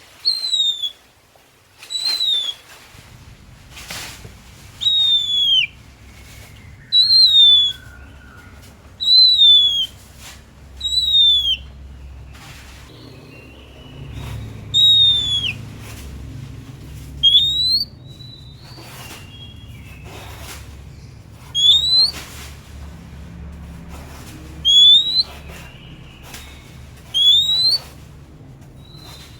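Oriental magpie-robin (kacer) singing: a loud, clear whistled note repeated about every two seconds, the earlier notes falling in pitch and the later ones rising, with softer, lower warbled notes between them.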